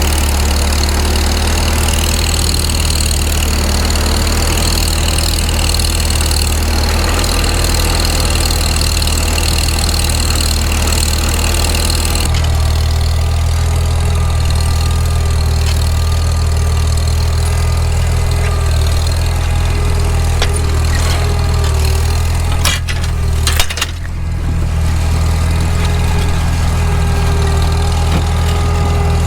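Farmall Super M tractor's four-cylinder engine running steadily, as when pulling a dirt scraper. About 23 s in there are a few sharp knocks and the engine sound dips briefly before carrying on.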